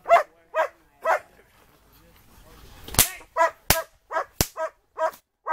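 Rottweiler on a back tie barking at the helper in defense work: short, repeated barks, three near the start and then a quicker run of about two a second after a short pause. Three sharp cracks come in among the later barks.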